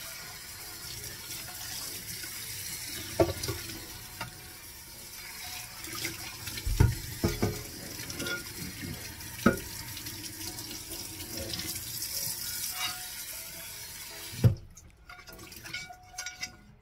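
Kitchen tap running and splashing onto a non-stick frying pan as it is rinsed in a stainless-steel sink, with a few knocks as the pan is moved about. The water stops near the end, after a last knock.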